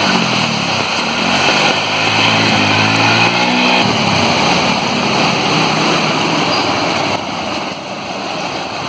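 Small vehicle engine revving as it pushes through deep floodwater, its pitch rising and falling over the rush and splash of water. The engine note drops away about four seconds in, leaving the steady wash of water.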